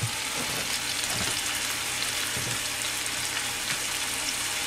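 Stuffed chicken breasts frying in hot oil in a pan, a steady sizzle and crackle as the second side browns.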